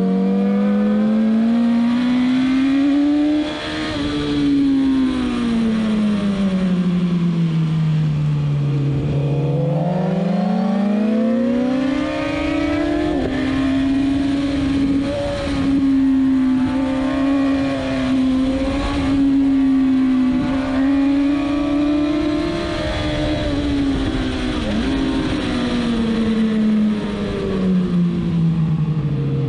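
Suzuki GSX-R1000's inline-four engine at track speed over wind rush. Its pitch climbs for the first few seconds, falls steadily to a low note, climbs again and holds high and fairly steady through the middle, then drops low again near the end.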